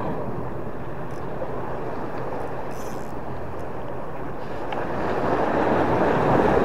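Steady wind rushing over the microphone with sea waves washing, growing louder near the end.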